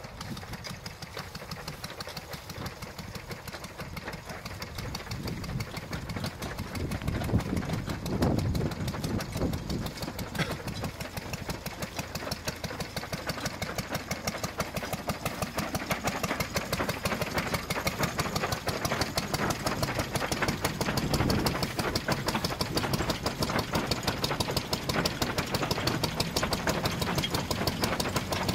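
A 1928 threshing machine working as oat straw is fed in: a fast, even mechanical clatter over a steady engine-like drone. It gets louder from about six seconds in.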